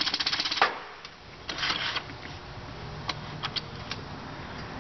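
Quick metallic clicking and rattling as the driven sprocket support of a GM 440-T4 (4T60) automatic transmission is worked back and forth to seat it, with the clutch discs likely not fully engaged on their splines; a brief scrape follows about one and a half seconds in, then a few single clicks.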